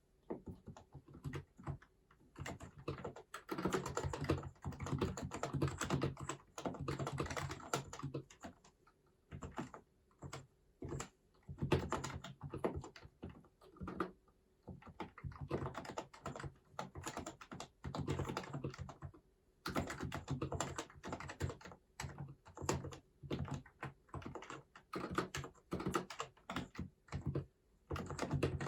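Typing on an HHKB Hybrid Type-S keyboard, whose silenced Topre electrostatic capacitive switches give soft, muted keystrokes. The keystrokes come in quick runs broken by short pauses, with a long stretch of fast, dense typing about three to eight seconds in.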